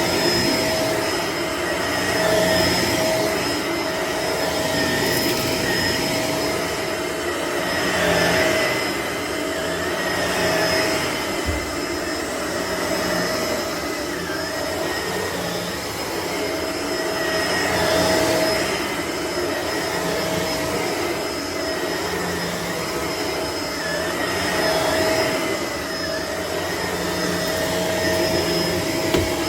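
Shark upright vacuum running and picking up debris, with a steady high whine over the motor's rushing air. The sound swells and eases every few seconds as it is pushed back and forth.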